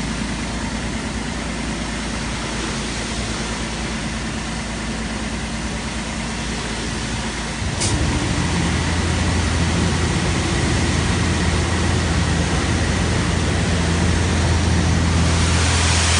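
Automatic car-wash machine running with a steady mechanical noise. About halfway through, a click, and the sound shifts to a louder, deeper steady hum as the machine moves to another stage.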